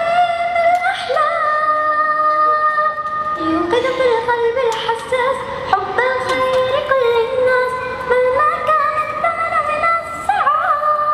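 A young girl singing a nasheed unaccompanied into a handheld microphone, drawing out long held notes that slide from one pitch to the next.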